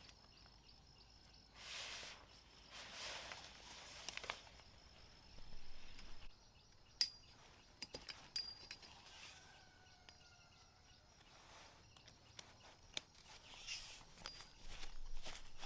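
Irregular rustling swishes and light clicks and knocks of someone moving about and handling things on a forest floor, with a faint bird call about ten seconds in.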